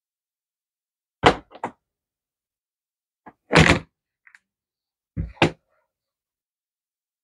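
Short thuds and knocks of objects handled on a craft table, in three groups, the longest about halfway through, as a hot glue gun is picked up and set back down.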